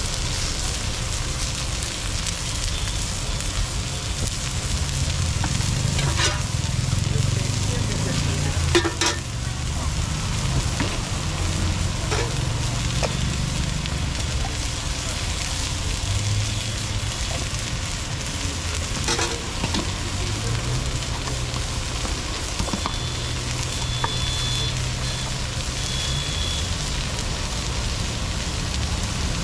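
Chopped onion and crumbled paneer sizzling steadily on a hot, oiled flat iron griddle, with a low rumble of street traffic underneath and a few sharp clicks along the way.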